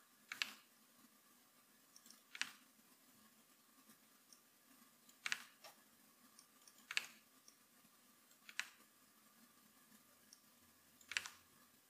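Faint, scattered clicks of a computer keyboard: about seven single key presses spaced a second or two apart.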